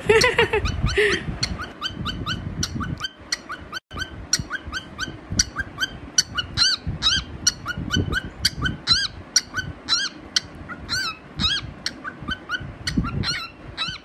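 Cockatiel chirping over and over in short rising-and-falling chirps, about four a second.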